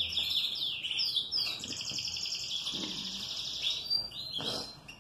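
Domestic canary singing: a continuous run of fast trills and quick rising and falling whistled notes, fading out near the end.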